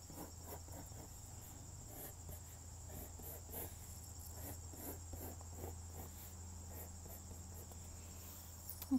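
Pencil scratching on paper in many short, quick strokes as sketched circles are gone over to darken them, with a faint steady high-pitched whine underneath.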